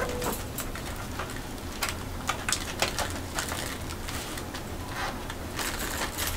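Light, irregular clatter and tapping of aluminium foil food containers and lids being handled and a spoon working in a steel pot, over a steady low hum.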